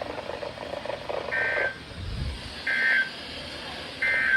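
Emergency Alert System SAME data bursts from a NOAA Weather Radio broadcast: three short, identical digital bursts about a second and a half apart, the pattern of the end-of-message code that closes a broadcast alert.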